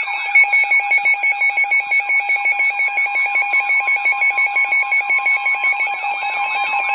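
Weather radio's alert alarm sounding for a flash flood warning: a loud electronic alarm pulsing rapidly, about seven times a second, over steady tones.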